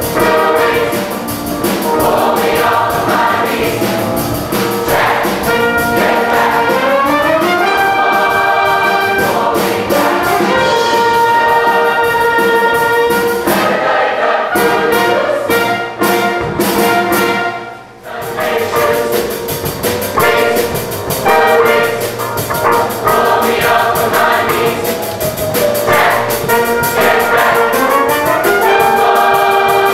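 A choir singing with a concert band, brass and trumpets prominent, in sustained chords; the music thins out briefly a little past the middle before the full sound returns.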